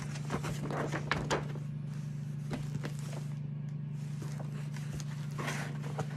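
Tissue paper and a cardboard box rustling and knocking lightly as they are handled, in short scattered bursts that are busiest in the first second or so, over a steady low hum.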